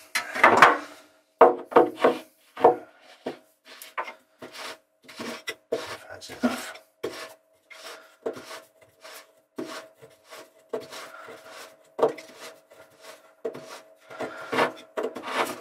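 Short, irregular rubbing and scraping strokes as a Trudesign composite seacock is screwed by hand onto its through-hull fitting, plastic threads and parts grating against each other.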